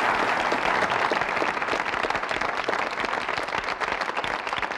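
Studio audience applauding at the end of a television talk show, the clapping dense and steady and easing off slowly.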